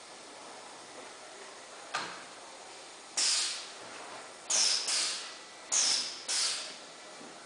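Short hisses of compressed air from the pneumatic air system of a high-frequency PVC welding machine, five in quick succession from about three seconds in, each starting sharply and fading over about half a second. A single sharp click comes about two seconds in.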